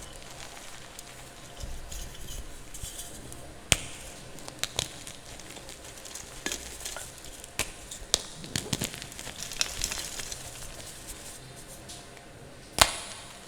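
Close-miked chalk being crumbled and snapped: scattered sharp snaps and crackles over a steady faint hiss, with a loud snap about a quarter of the way in and another near the end.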